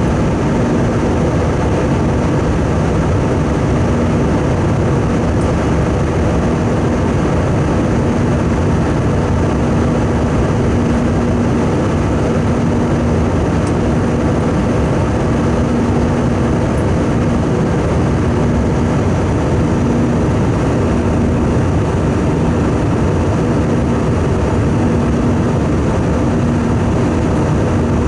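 Steady engine and airflow noise inside the cabin of an Airbus A320 airliner, with a low hum that pulses on and off about once a second.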